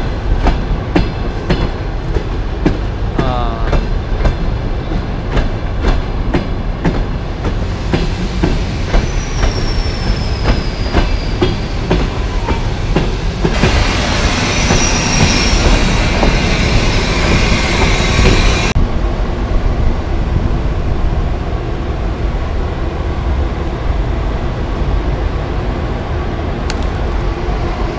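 Russian Railways passenger train rolling past along the platform, its wheels clicking and clacking over the rail joints. A high wheel squeal, falling slightly in pitch, comes about a third of the way in and again near the middle, with a stretch of louder hiss in the middle.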